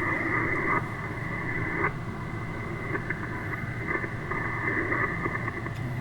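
Amateur HF radio receiver hissing steadily through its speaker: band noise with faint garbled signals, cut off above the narrow voice band. The band is in poor condition.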